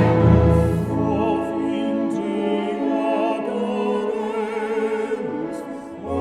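Recorded music: a singer with a wide vibrato over orchestral-style accompaniment. The deep bass drops out about a second in and returns at the very end.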